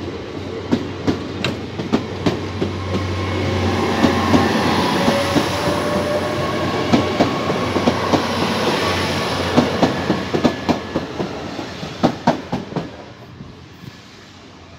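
GWR Class 802 bi-mode train passing over the level crossing: a rushing rumble with a rapid clatter of wheels over the rail joints. It builds to a peak mid-way, then fades away near the end.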